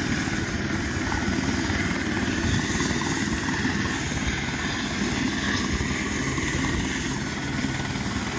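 Helicopter's engine and rotor running steadily.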